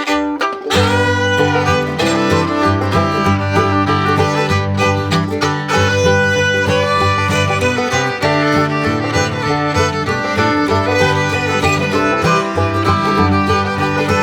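Background music led by a fiddle over plucked strings and a steady bass line, in a country or bluegrass style.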